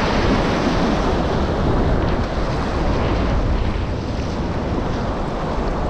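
Whitewater of a river rapid rushing steadily, a loud continuous roar of churning water.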